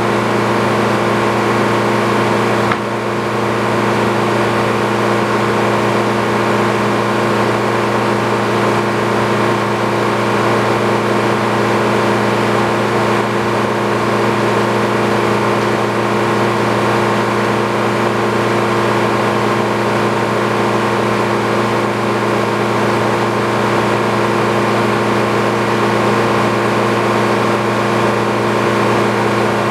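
Sawmill engine running steadily at constant speed, with a brief dip in level about three seconds in.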